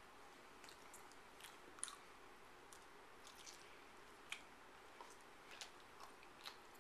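Faint, irregular wet clicks and smacks of a mouth overfull with chewing gum being chewed.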